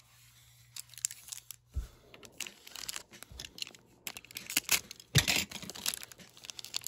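Foil trading-card booster pack being slit open with a utility knife and crinkled in the hands: a run of crackles and rips, with two dull knocks about two and five seconds in.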